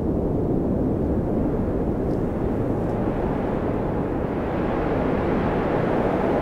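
Wind blowing in a snowstorm: a steady low rushing rumble that turns brighter and hissier from about four seconds in.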